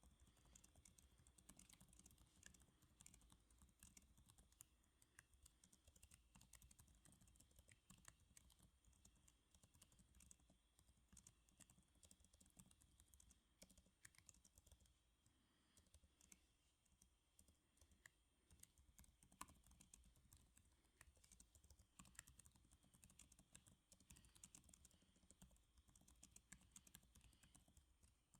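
Faint, continuous typing on a computer keyboard: a steady run of quick, soft key clicks.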